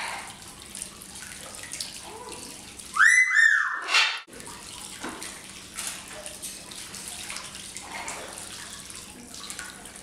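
A parrot gives a loud whistled call that rises quickly and holds, then a second held call and a short harsh squawk, all within about a second, over a steady background hiss.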